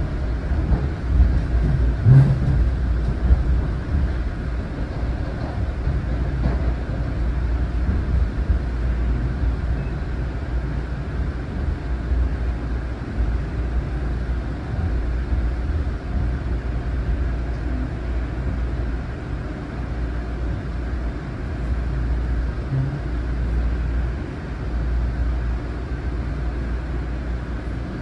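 Onboard ride noise of a Long Island Rail Road M9 electric railcar under way: a steady low rumble of wheels on rail. A few louder bumps come in the first few seconds.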